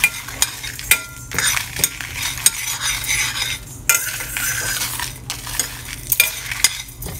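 Spatula scraping and clinking against a stainless steel pan as whole spices are stirred while roasting, the seeds and dried chillies rustling and rattling across the metal in uneven, repeated clicks.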